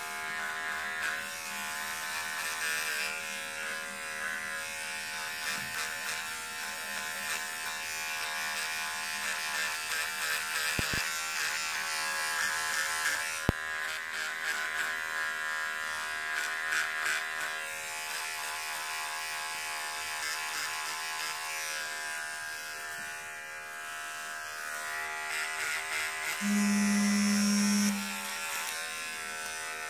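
Electric razor buzzing steadily as it is run over a sock to trim it. There is a single click about halfway through, and near the end a louder steady hum lasts about a second and a half.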